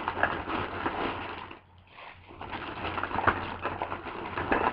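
Crinkling and rustling of packaging as ink pads are rummaged through and handled, in two stretches with a short lull just under two seconds in.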